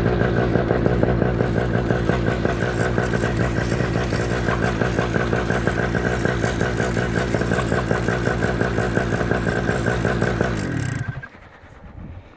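Vittorazi Moster 185 two-stroke paramotor engine running steadily at one speed as it warms up before take-off, then cutting off near the end.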